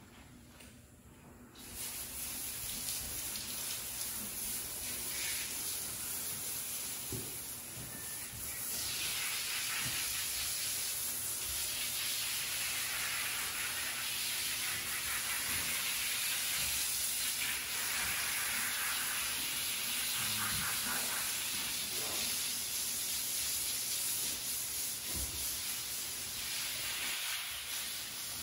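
Garden hose spray nozzle spraying water onto a horse's coat: a steady hiss that starts about two seconds in.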